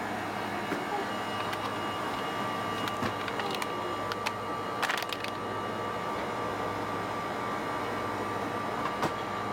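Steady background hum of a store's refrigerated cases and lighting, with a few faint ticks and a short crinkle of a plastic dog-treat bag being handled about five seconds in.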